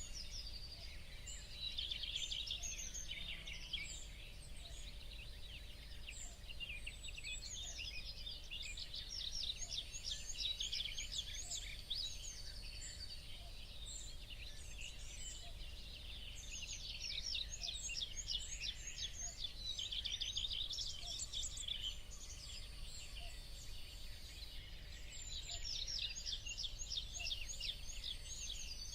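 Many small birds chirping and twittering in dense, overlapping runs of quick high notes, over a steady low background rumble.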